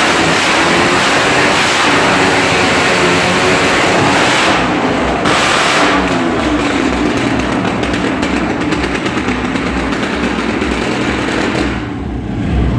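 Motorcycle engines running loud inside a wooden wall-of-death drum, revving up and down, with the engine note rising and falling around the middle.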